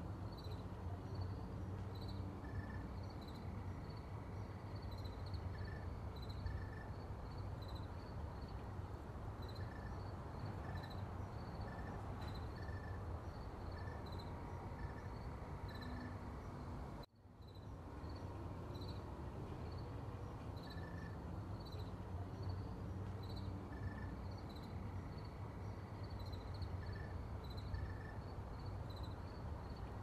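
Insects chirping in short, repeated high calls over a low, steady rumble. The sound cuts out briefly a little past halfway, then resumes.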